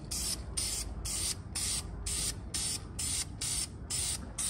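Aerosol spray can of red high-temperature engine paint hissing in short, even bursts, about two a second, as the paint is sprayed on.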